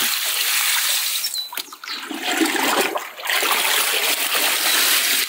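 Water poured from a plastic pot and splashing into a tub of cabbage leaves, a steady gush that breaks off briefly twice as the next potful is scooped.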